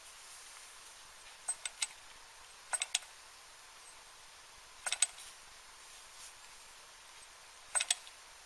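Light clicks and taps in four short clusters, a few seconds apart, from a hand working the flywheels of a model Stirling engine that has not yet started running on its own.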